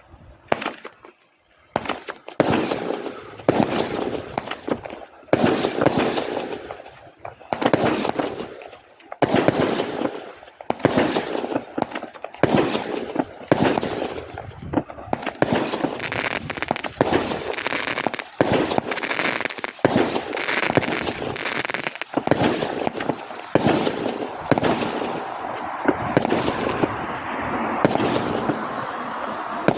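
Klasek Senior (C2520) 25-shot, 20 mm fireworks cake firing: a sharp shot about every second or so after a brief pause at the start. The shots come faster and overlap in the second half.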